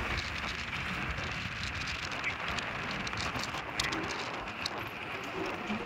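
Irregular crunching and clicking on a gravel road from hooves and footsteps, over a steady hiss.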